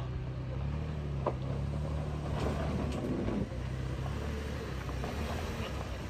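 Toyota Land Cruiser Prado's V6 engine running steadily with a low hum, just after clearing a steep off-road climb with its rear differential lock engaged. A short click about a second in.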